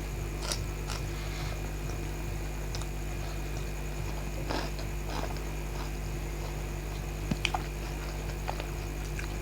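Sparse soft mouth sounds of eating a boiled egg: small bites, smacks and clicks, a few in quick succession about seven seconds in, over a steady electrical hum.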